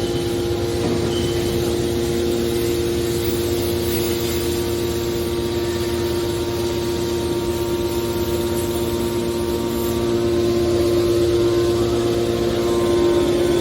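Automatic metal baler's motor running with a steady machine hum, getting slightly louder in the last few seconds.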